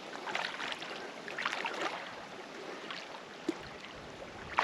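Faint water sloshing with small scattered splashes, as of a person wading into shallow lake water, with one small click about three and a half seconds in.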